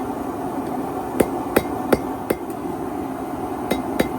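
Hammer blows on steel at an anvil, forging a knife blade: sharp metallic strikes with a short ring, a quick run of four in the middle and two more near the end, over a steady rushing noise.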